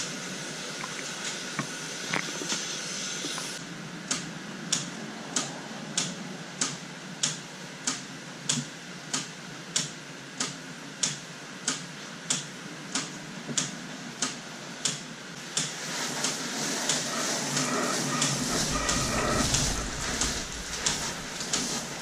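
Fertilizer injector on the watering line clicking steadily, about one and a half clicks a second, starting about four seconds in. Under it is the hiss of water spraying from a hose wand onto seed trays.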